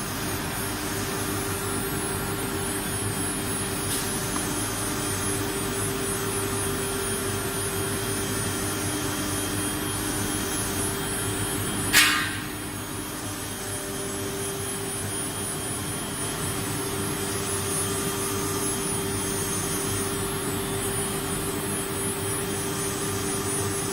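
CNC wood router running steadily with a steady hum, and a single sharp click with a short ringing tail about twelve seconds in.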